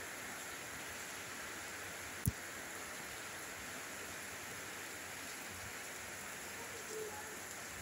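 Steady hiss of rain falling on leaves and the ground, with a single sharp knock about two seconds in.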